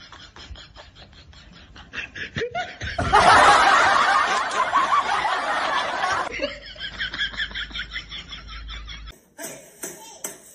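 Rapid, rhythmic snickering laughter, with a much louder, denser burst of laughing from about three to six seconds in, then more snickering.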